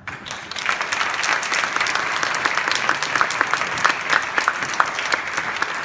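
Congregation applauding in a church: many people clapping, starting suddenly and holding steady.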